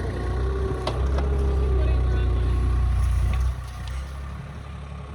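Mini excavator engine working under hydraulic load, getting louder about a second in and dropping back after three and a half seconds. A couple of sharp clicks come about a second in.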